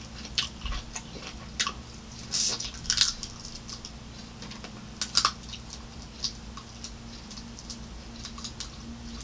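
Close-miked chewing of fried breaded shrimp: irregular soft crunches and wet mouth clicks, a few louder ones about two and a half to three seconds in and again around five seconds, over a faint low hum.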